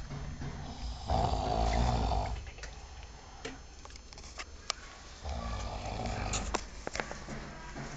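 A man snoring in his sleep: two long snores about four seconds apart, with a few short clicks in between.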